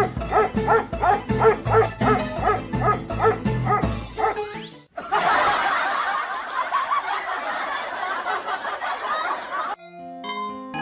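A dog barking over background music, with an edit about halfway through and a few separate keyboard-like notes near the end.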